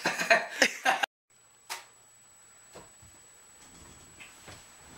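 A young man's voice for about a second, cut off abruptly; then quiet room tone with one sharp click and a few faint knocks.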